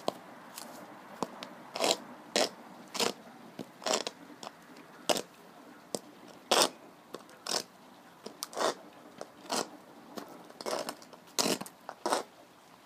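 High-heeled, lug-soled boots scuffing and scraping on a gritty concrete path: about a dozen short scrapes at uneven gaps of half a second to a second.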